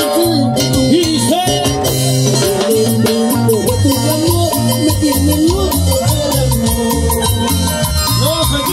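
Latin dance band music with a steady beat: pulsing bass, busy shaker-type percussion and a wavering melody line.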